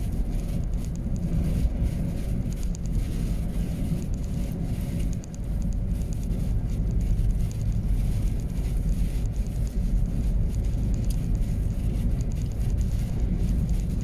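Steady low rumble of a vehicle driving on a snowy highway, heard from inside the cab: road and engine noise with some wind noise.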